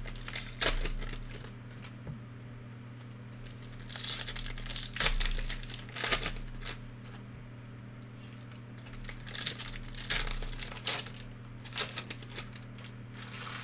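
Foil trading-card pack wrappers crinkling and tearing open in several short bursts, with quieter pauses between.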